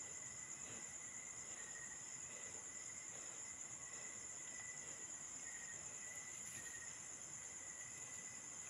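Faint, steady chorus of night insects: crickets trilling continuously at a high pitch, with a second, lower steady trill beneath.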